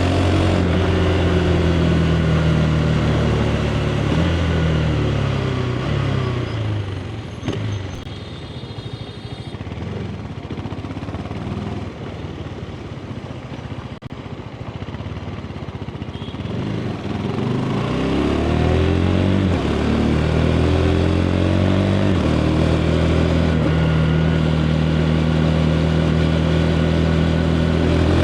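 KTM 390 Adventure's single-cylinder engine through its stock exhaust, ridden on the road: it holds steady revs, then the revs fall away and it goes quieter for several seconds, before climbing again from about two-thirds of the way in and settling at a steady cruise.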